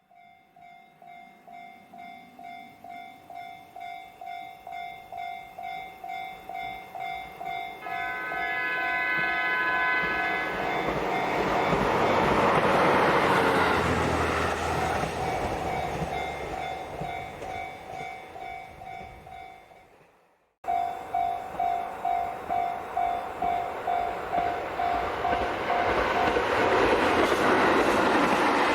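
Japanese level-crossing warning bell ringing in quick, evenly spaced strikes as a diesel train approaches. About eight seconds in the train sounds its horn for two seconds or so, then runs through the crossing with loud engine and wheel noise that fades away. After a sudden break near the end, the crossing bell starts again and train noise builds.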